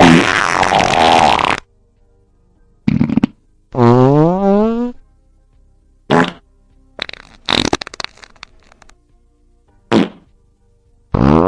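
A string of farts one after another with short quiet gaps. It opens with a long, noisy one, followed by a short one and then a drawn-out tonal one rising steadily in pitch. After that come a brief pop, a sputtering run of rapid little pops, and two more short ones near the end.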